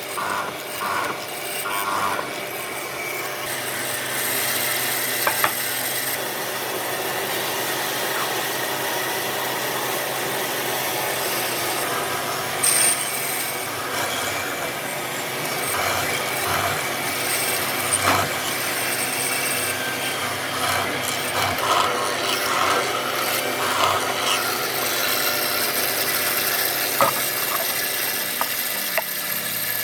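A handheld power tool running steadily against wood with a continuous rasping grind, with a few brief, sharper scrapes along the way.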